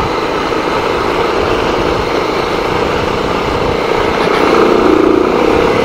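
Bajaj Pulsar 220 motorcycle engine running under way, mixed with wind and road noise. It gets a little louder about four and a half seconds in.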